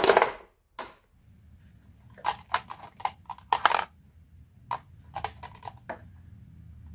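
Marbles clattering along a marble run: quick clusters of sharp clicks and clacks over a faint low rolling rumble, after one short loud burst right at the start.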